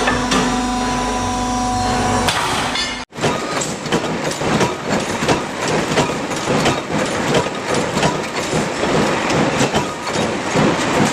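A steady humming tone for about three seconds, then, after an abrupt cut, dense irregular clattering and knocking of industrial machinery.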